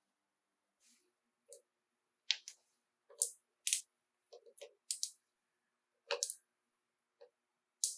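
Marbles rolling down a marble-run track, clicking sharply against the track pieces and each other about a dozen times at irregular intervals, with the loudest clicks in the middle.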